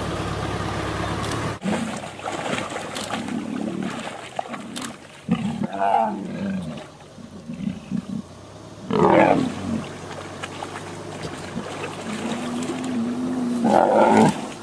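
Lions growling and snarling in irregular bursts as they feed together on a kill in shallow water. A steady low hum runs underneath at first and cuts off about a second and a half in.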